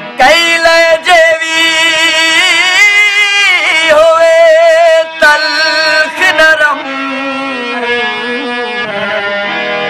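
Male singer holding long, wavering notes without words at the start of a Saraiki folk song, over a steady instrumental accompaniment. The voice stops about two-thirds of the way through, leaving the quieter accompaniment.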